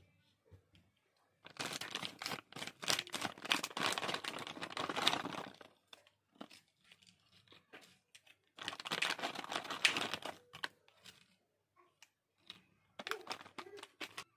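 Crinkling and crackling of a Bingo potato chips packet as it is opened and the chips are tipped out onto a wooden tray, in three bursts with short pauses between.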